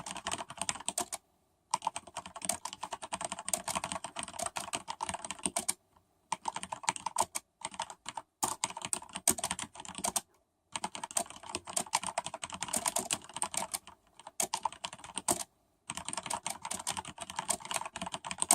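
Fast typing on a Corsair K95 RGB mechanical keyboard with Cherry MX Red linear switches and ABS keycaps: dense runs of keystrokes in bursts of a few seconds, with short pauses between them.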